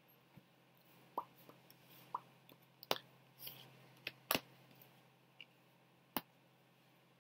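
Tarot cards being laid down onto a spread of cards: a scattered series of light, sharp clicks and taps over a few seconds.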